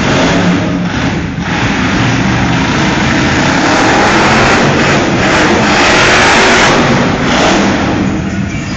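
Monster truck engine revving hard as the truck drives across the dirt arena floor. It swells over the first few seconds and eases off near the end.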